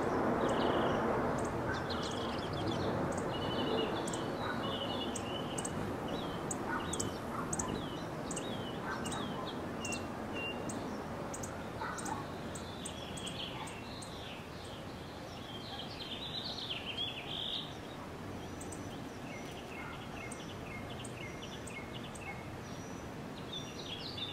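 Birds chirping and calling over a steady outdoor background hiss: short, thin high chirps repeating about every half second, mixed with warbled calls lower down.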